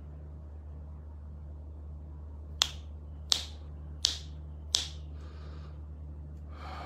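Four sharp cracks, evenly spaced about two-thirds of a second apart, each with a short ringing tail, over a steady low hum.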